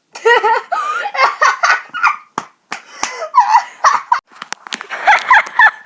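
A boy laughing loudly in repeated bursts.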